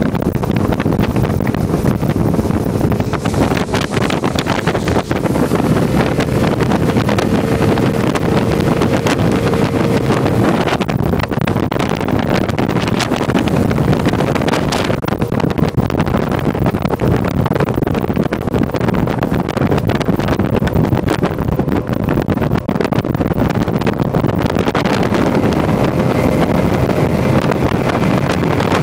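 Mercury 150 outboard motor running a bass boat at speed across open water, mixed with the rush of the hull and heavy wind buffeting the microphone. The sound is a loud, steady rush without pauses, with a faint engine hum showing through at times.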